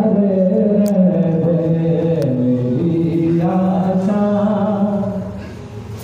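Islamic religious chanting by a single voice in long, held melodic notes, dropping away about five seconds in.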